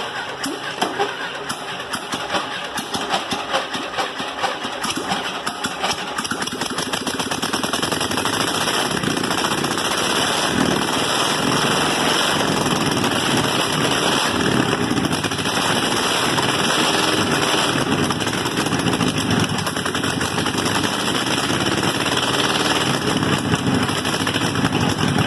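A large old engine running loudly, with a fast, rattling chatter of firing strokes. It grows louder over the first several seconds, then holds steady.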